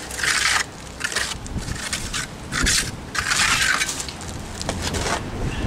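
Steel trowel scooping wet stucco and spreading it onto a cinder block wall, in several short gritty scraping strokes with brief pauses between them.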